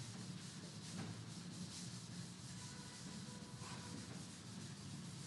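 Chalkboard duster wiping chalk off a blackboard in repeated quick back-and-forth strokes, a faint dry scraping.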